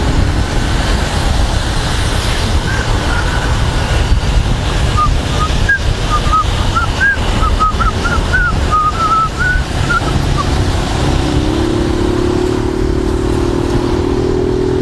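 Wind and road rumble over a moving motorcyclist's helmet microphone, with the motorcycle engine running underneath; the engine note rises as the bike accelerates in the last few seconds. A run of short high chirps sounds in the middle.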